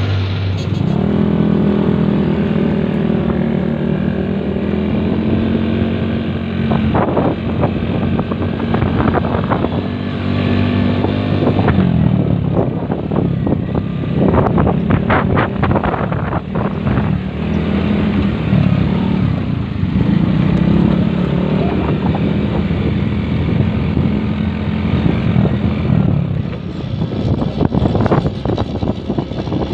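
Small motorcycle engine running while driving on a dirt track, its speed rising about a second in and then going up and down, with several bursts of rushing noise.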